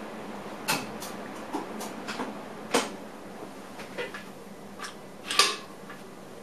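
Irregular clicks and knocks in a train driver's cab, about ten of them at uneven spacing and the loudest near the end, over a steady hiss.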